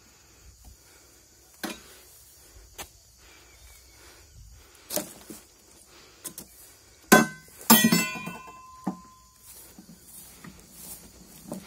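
A metal pole knocking and clanking, a few scattered knocks and then two sharp clanks about two-thirds of the way in that ring on for about a second and a half.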